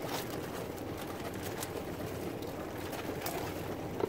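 Steady wind and water noise on an open boat, with a few short, sharp clicks and taps as crabs are handled and measured with a plastic crab gauge.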